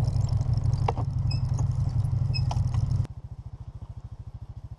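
Side-by-side's engine idling with a steady low rumble and a few light clicks. About three seconds in the sound drops suddenly to a quieter, even, pulsing idle.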